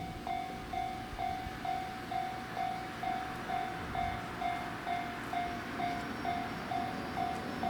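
Japanese railway level-crossing warning bell ringing, one steady tone repeated evenly about twice a second, over a low rumble.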